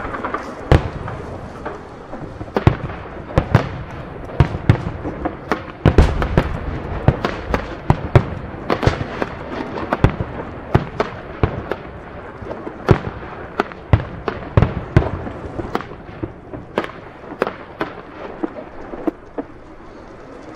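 Aerial firework shells bursting in a rapid barrage of sharp bangs, densest about six to ten seconds in and thinning out toward the end.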